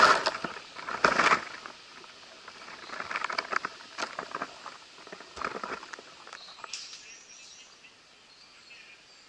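Leaves and twigs rustling and crackling close to the microphone in irregular bursts as foliage brushes against the head-mounted camera. It is loudest at the start and about a second in, and dies away after about seven seconds.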